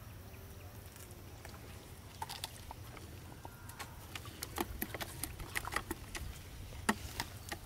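Scattered sharp taps and rustles of hand-line fishing tackle being handled over a plastic bucket, sparse at first and coming thicker in the second half, over a low steady rumble.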